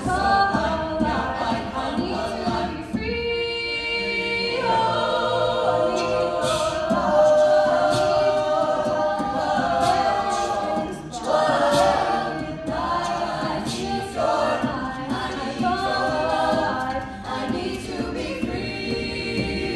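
Mixed-voice a cappella vocal ensemble singing a song, several voices layered in chords over a pulsing low vocal line, with no instruments.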